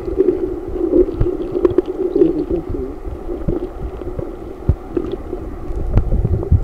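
Muffled stream water heard through a microphone held underwater: a steady low drone, with scattered knocks and clicks as hands and a net grope among the rocks for fish.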